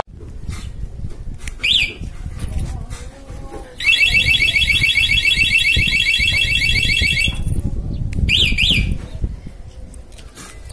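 Aftermarket anti-theft alarm on a Honda RS125 Fi motorcycle, set off from its key-fob remote. It gives one short chirp, then a loud, rapidly warbling siren for about three and a half seconds, then two quick chirps.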